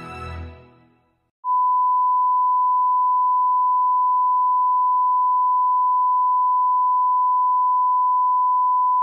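Sad music fades out within the first second; after a brief silence a steady 1 kHz sine test tone comes on about a second and a half in and holds unchanged. It is the test tone of a TV channel that has signed off the air.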